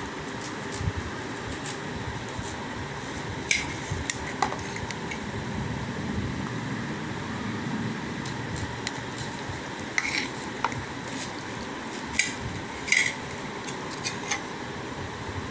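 A perforated metal serving spoon scrapes and clinks against a frying pan and a plate as chicken pieces are served. The sharp clinks come at irregular intervals, the loudest about 3.5 and 13 seconds in, over a steady background hum.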